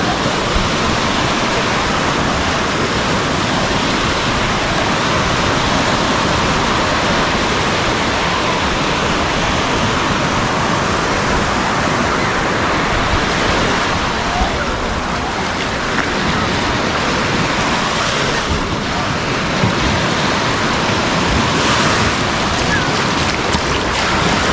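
Sea waves washing onto a sandy beach, a steady rush of surf, with wind on the microphone.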